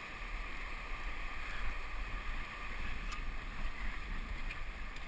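Wind buffeting the microphone over a steady wash of ocean surf on a rocky shore, with a couple of faint clicks.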